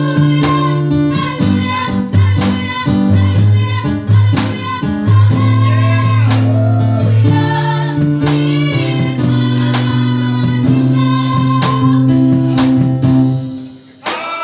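Small church choir singing a gospel song over a band, with a sustained bass line and a steady beat. The music falls away briefly near the end.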